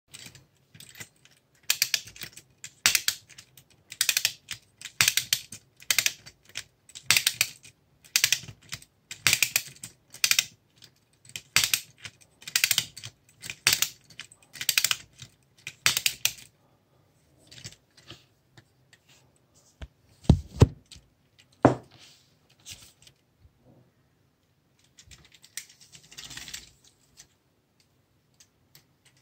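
Clockwork spring motor of a Lehmann tin toy being wound: bursts of ratchet clicking about once a second for some fifteen seconds. Then two sharp knocks with a short ring about a second apart, and a brief rasp near the end.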